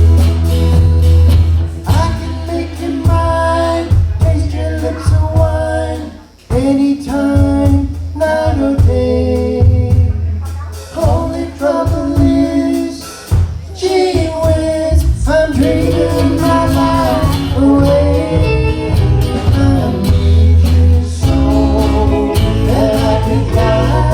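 Live band playing a song: singing over guitar, with a strong bass line underneath.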